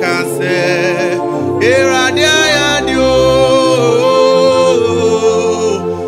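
A male gospel singer sings a Twi worship song into a close microphone, with pitch glides and a long held note about three to five seconds in. Steady backing chords are sustained underneath.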